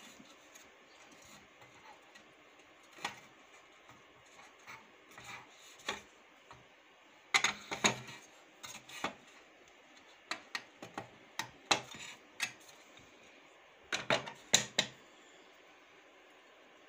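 Irregular clicks and knocks of hard plastic and metal parts being handled and fitted around an industrial sewing machine's aluminium oil pan and table. They come in short clusters, loudest about seven and a half seconds in and again around fourteen to fifteen seconds in.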